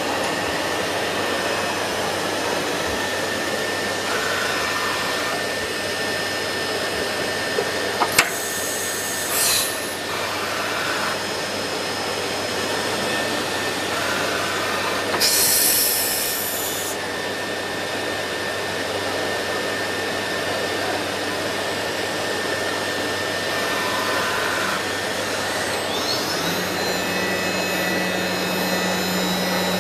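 CNC router's spindle and dust extraction running with a steady whir. A sharp click comes about eight seconds in, short hissing bursts follow soon after and again about halfway through, and a low steady hum sets in near the end.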